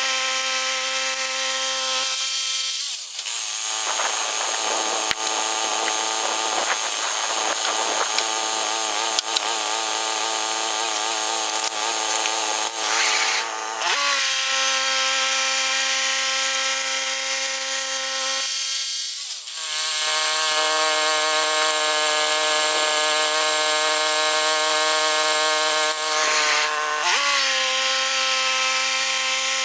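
Portable bandsaw sawmill's gasoline engine running steadily, with two stretches, starting about 3 s and about 19 s in, where the engine note changes and wavers and a hiss of the band blade cutting through pine joins it; each time it settles back to the steady note.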